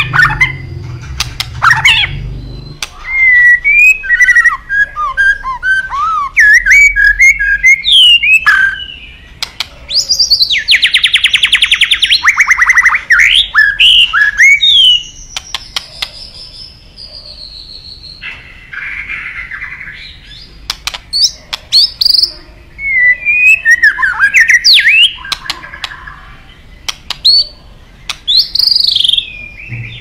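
White-rumped shama singing a loud, varied song of short whistled phrases that glide up and down in pitch, with a fast trill of rapidly repeated notes near the middle and sharp clicking notes scattered between phrases.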